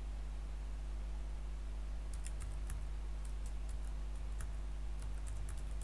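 Computer keyboard keys being typed, a quick run of separate clicks starting about two seconds in, over a steady low electrical hum.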